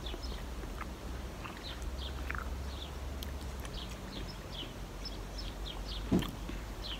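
Small birds chirping in short, high, falling notes, a few each second, over a steady low outdoor hum. A brief low sound comes about six seconds in.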